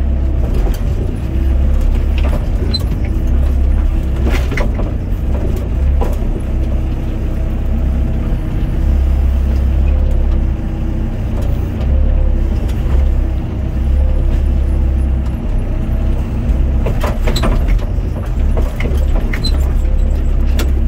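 Doosan DX55 mini excavator's diesel engine running steadily, heard from inside the cab, its note wavering slightly as the hydraulics move the boom and bucket. A few short clunks come about four seconds in and again near the end.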